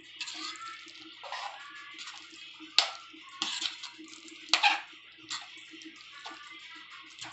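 Spatula stirring watery pav bhaji in a metal kadhai, just thinned with a glass of water: irregular wet, sloshing scrapes, with two sharp knocks of the spatula against the pan about three and four and a half seconds in.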